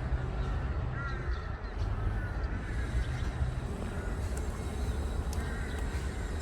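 Birds calling outdoors: a series of short arched calls repeated every second or so, over a steady low rumble.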